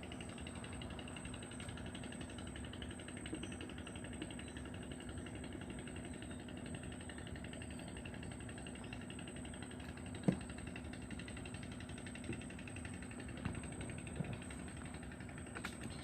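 An engine running steadily at idle, a constant hum, with a few short knocks, the loudest about ten seconds in.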